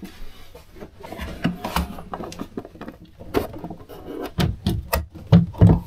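Irregular knocks, clicks and rustles of hand handling around a 3D printer and the shelf above it, with a few louder thumps in the last second and a half.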